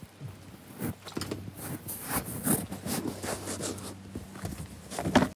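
Irregular rustling and scraping of clothing and handling as people move about, with a faint low hum through the middle. It cuts off suddenly.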